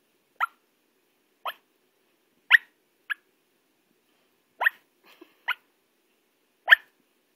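Yorkshire terrier yipping in her sleep while dreaming: seven short, sharp yips at uneven intervals.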